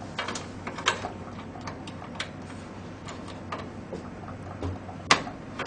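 Irregular small clicks and taps of a SATA data cable being handled and pushed into a motherboard's SATA port, with one sharper click about five seconds in.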